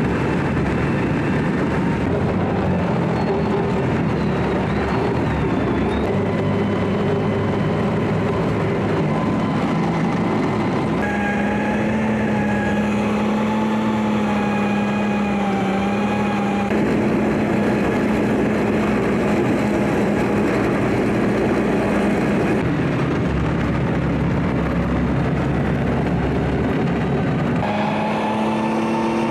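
Military vehicle's engine and drivetrain running, heard from inside the crowded troop compartment: a loud, steady rumble with a droning whine, its character changing abruptly a few times.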